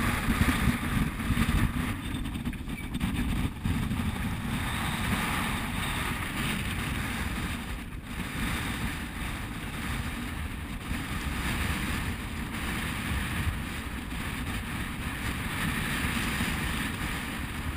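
Wind buffeting the microphone over the rush of water along a sailing yacht's hull as it sails in a strong breeze. There is a brief dip about eight seconds in.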